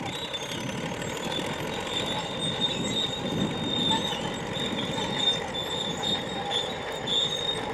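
Steel tracks of a crawler tractor running, with a continuous high metallic squeal and clatter.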